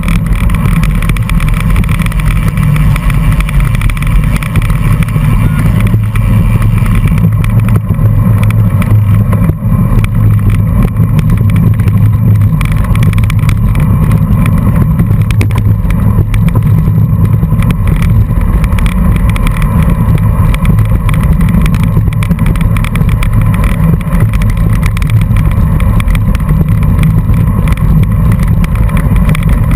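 Steady, loud low rumble of wind buffeting and road vibration picked up by a bicycle-mounted camera, riding at race pace in a pack on a dirt road.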